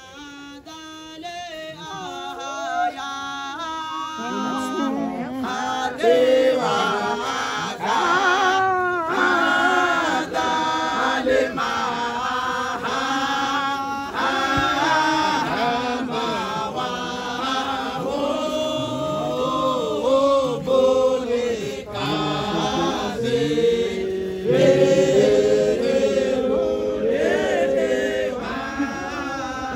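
A group of men chanting together, starting softer and swelling to full voice about six seconds in.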